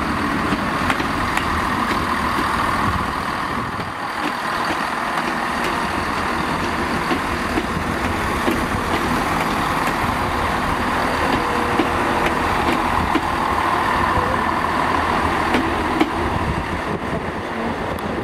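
Diesel multiple-unit trains running through the station: a steady engine drone and wheel-on-rail noise, with scattered sharp clicks from the wheels over rail joints.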